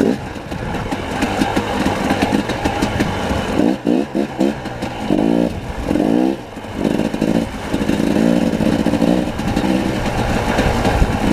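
Dirt bike engine running under way, the throttle opening and closing. Its pitch climbs in a few quick revs about four to seven seconds in.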